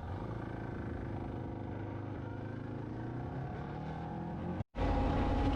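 Motorcycle engine running while riding, its pitch slowly rising and falling with the throttle. It cuts out briefly about four and a half seconds in, then comes back louder and steadier.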